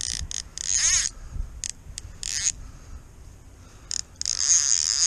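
Fly reel ratchet buzzing in irregular spurts as a hooked fish pulls line off the reel, with several short bursts and a longer run near the end, its click rate speeding up and slowing down.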